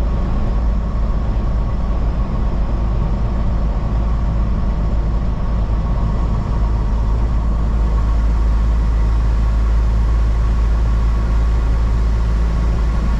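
Steady low drone of a semi-truck's engine and road noise heard from inside the cab while driving, getting slightly louder partway through.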